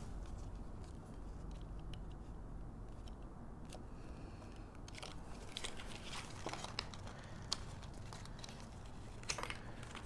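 Faint crunching and rustling as a paper piercer is pushed through two layers of patterned paper into a foam backing, with small clicks past the middle and again near the end.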